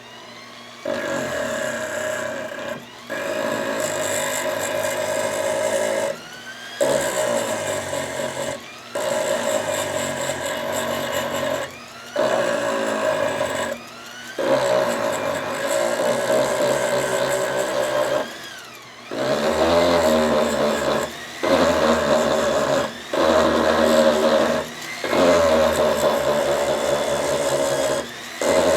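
Foot-pedal-controlled rotary tool with an abrasive wheel grinding rust and flaking plating off steel pliers. It runs in about ten bursts of a couple of seconds each with short pauses between, its pitch rising and falling as the pedal varies the speed.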